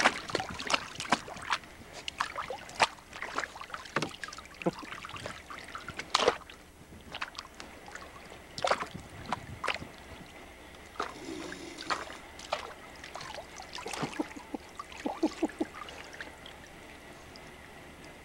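Water splashing and sloshing in a plastic kiddie pool as a Saint Bernard and a Pomeranian move about in it: a run of irregular splashes that thins out near the end.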